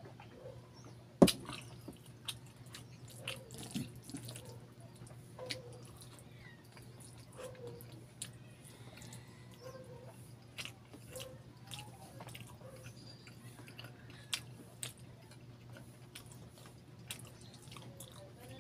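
Close-miked eating sounds: wet, sticky smacks and clicks of lips and mouth while chewing saucy chicken barbecue and rice and sucking sauce off the fingers. One sharp knock about a second in is the loudest sound. A faint steady low hum lies underneath.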